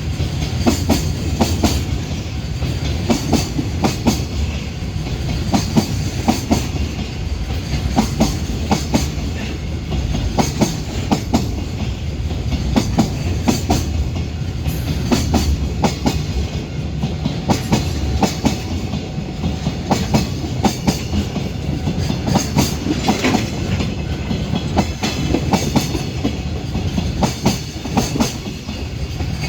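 Container freight train hauled by an EH500 electric locomotive rolling past, a steady rumble with the rapid clickety-clack of wagon wheels passing over rail joints.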